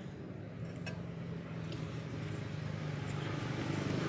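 A background engine running steadily, growing gradually louder, with a few faint light clicks.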